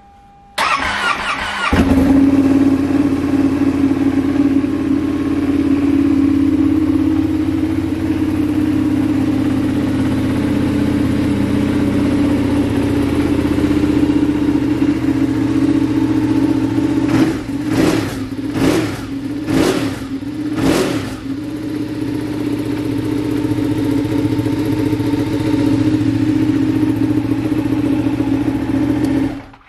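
Cold start-up of a 2016 Ducati 959 Panigale's Superquadro V-twin through an Austin Racing exhaust. The starter cranks for about a second, then the engine catches and settles into a steady idle. Several quick throttle blips come about two-thirds of the way through, and the engine is switched off at the end.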